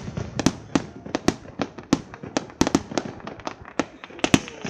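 Fireworks going off in a rapid, irregular barrage of sharp bangs, about three or four a second, over a continuous crackle.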